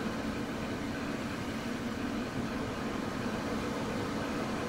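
Steady hum and hiss from sound-fitted model railway locomotives standing idle on the layout.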